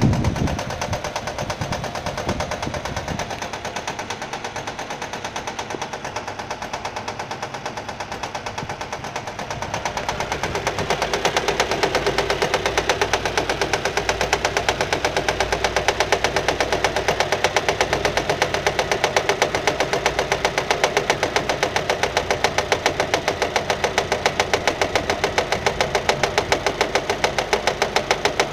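Nissan Micra 1.2 petrol engine running with a rapid, regular clicking knock that grows louder about ten seconds in. The owner later traced this abnormal noise to a fraying alternator belt slapping against the metal body as it turns, not to an internal engine fault.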